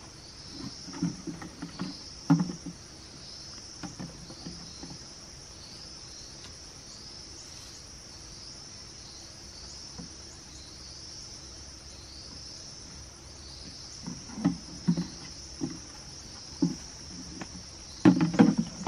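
Insects chirping steadily in a high, pulsing drone, with dull thumps and knocks from handling a hoe and a plastic watering can: a few about a second in, more later, and the loudest just before the end.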